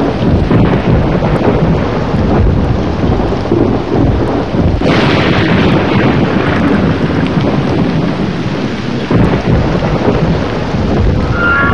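Storm on a film soundtrack: heavy rain with rumbling thunder, and a sharper thunderclap about five seconds in.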